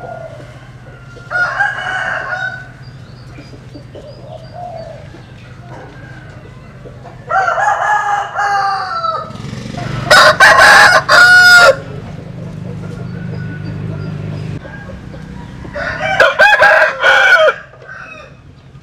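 Roosters of a Vietnamese-American cross 'butterfly' chicken breed crowing in turn, four crows in all, the loudest and closest about ten seconds in. A low steady hum runs underneath.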